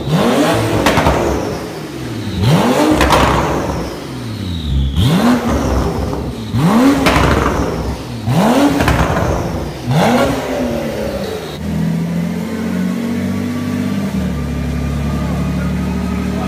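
Porsche 911 Turbo S twin-turbo 3.8-litre flat-six, tuned to about 730 hp, revved hard in neutral through its exhaust. It gives about six quick blips, each rising sharply and falling away, then settles to a steady idle for the last few seconds.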